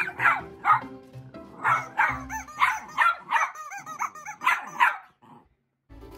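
Small dog barking in quick repeated yaps over background music, stopping about five seconds in.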